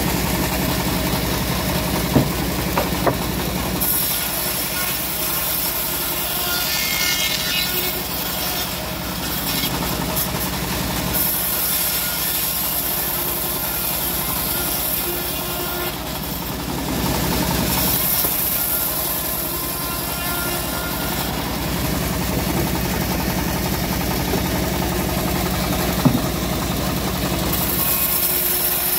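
Homemade engine-driven bandsaw mill running steadily while its blade cuts teak logs into slabs, the cutting hiss rising and falling as the wood is fed through. A few sharp knocks stand out above it.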